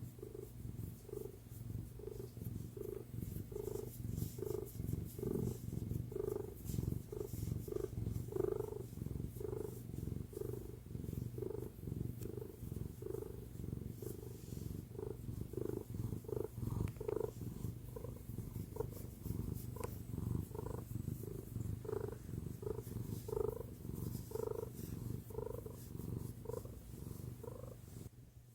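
Domestic cat purring steadily, a low continuous rumble that swells in regular pulses a little under twice a second.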